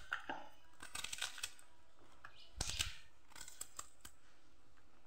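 Kitchen knife slicing a wedge of cabbage into fine shreds, cut in the hand with no board beneath: a run of faint, crisp cuts, with one louder cut a little under three seconds in.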